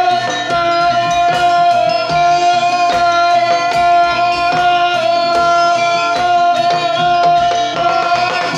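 Javanese gamelan music: drum strokes over many ringing metal tones, with one long note held throughout.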